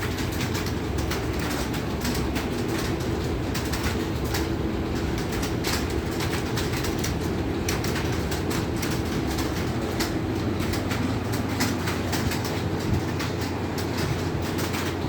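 Computer keyboard being typed on quickly, a steady irregular clatter of keystrokes over a continuous low hum.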